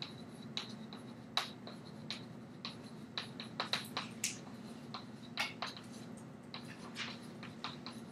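Chalk writing on a blackboard: irregular sharp taps and short scratches as the letters go down, over a steady low hum.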